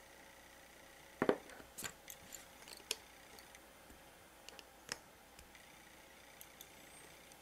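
Needle-nose pliers clicking and snapping small bits of 3D-printed support material off a plastic print: a scattering of short, sharp clicks, the loudest about a second in, a few more over the next two seconds and a pair near five seconds.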